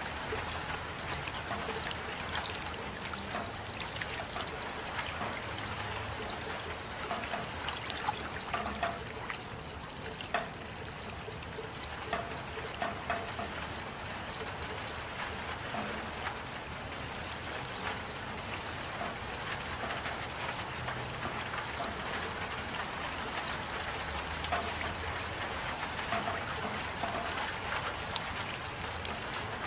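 Steady rain with dripping and trickling water, scattered drops ticking throughout.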